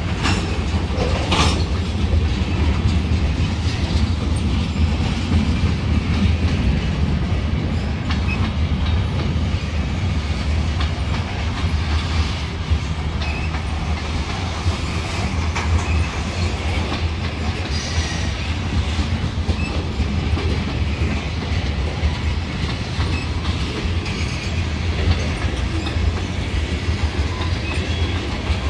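Freight train of tank cars and covered hopper cars rolling past on the near track: a steady rumble of steel wheels on rails, with the clack of wheels over rail joints and a sharp knock about a second and a half in.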